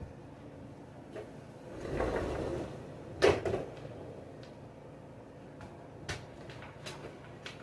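Handling noises with no motor running: a short scrape or rustle, then one sharp click followed by two lighter ones, and a few more light clicks and knocks near the end, like hard plastic parts being moved or latched.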